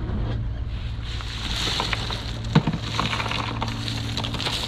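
Ice cubes rattling and crunching in a landing net tipped over an ice-filled fish cooler, a dense clatter with one sharp knock about halfway through, over a steady low hum.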